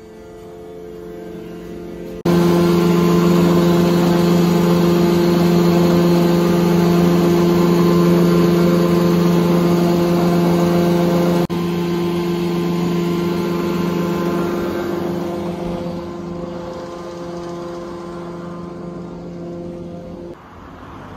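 Hydraulic mine winding engine running: a loud, steady machine hum with a droning tone and hiss. It starts suddenly about two seconds in, dips for an instant midway, and grows quieter over the last several seconds.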